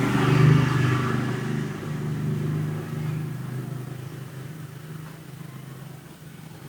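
A low, steady motor hum, loudest about half a second in, then fading away over the next few seconds.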